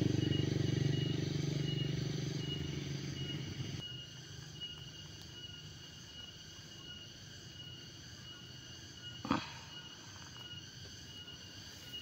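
A motor engine fading away over the first four seconds, cut off abruptly. Then a faint outdoor background with a steady, thin, pulsing high tone, and a single brief knock about nine seconds in.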